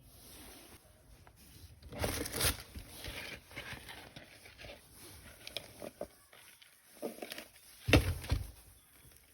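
Plastic toy parts and packaging being handled and unpacked: irregular crinkling and rustling with a louder burst about two seconds in, and a sharp knock near the end.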